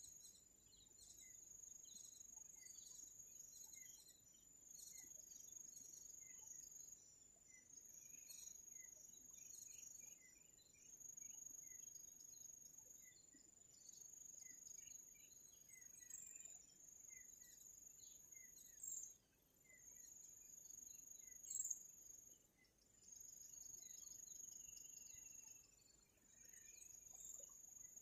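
Faint outdoor insect chorus: a high, steady trill that runs in stretches of a second or two with short breaks, with scattered small chirps from birds or insects.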